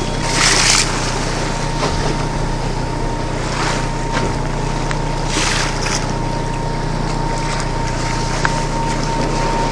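Fishing boat's engine humming steadily at sea, under wind on the microphone and the rush of choppy waves against the hull. Louder rushes come several times, about half a second in and again around three and a half, five and a half and six seconds.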